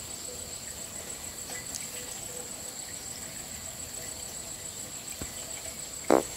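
Insects trilling steadily and high-pitched in the background, with one brief louder sound near the end.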